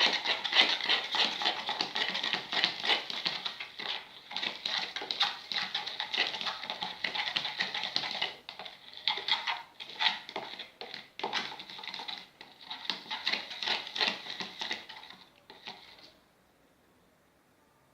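Slime mix of glue, foam and activator being stirred: a rapid, irregular run of wet, sticky squelches and clicks that stops near the end.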